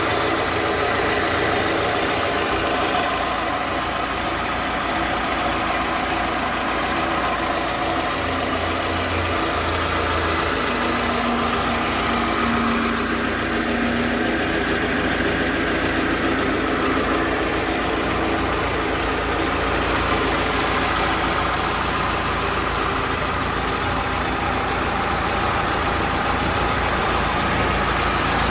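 Chevrolet Niva's 1.7-litre eight-valve naturally aspirated inline-four idling steadily, heard close up from the open engine bay.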